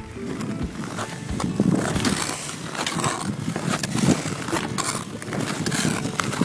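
Ice skate blades scraping and gliding over rough, snow-dusted natural ice in a steady rhythm of strides, about one stroke a second.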